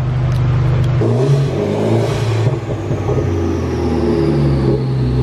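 Mitsubishi Lancer Evolution X's turbocharged four-cylinder engine running on a chassis dyno. Its pitch shifts up and down with a brief hiss before it settles to a steady idle near the end, while a high whine slowly falls in pitch.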